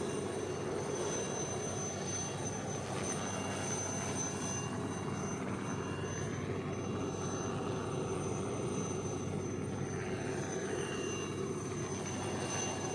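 Helicopter turbine and rotors running steadily: a continuous rush with a constant high whine, the pitch sweeping slowly around the middle.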